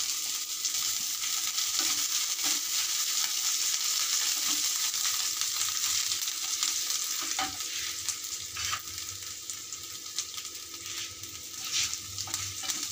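Chopped garlic sizzling in hot mustard oil in a non-stick frying pan, stirred with a wooden spatula: a steady frying hiss with scattered sharp clicks and scrapes, easing a little in the second half.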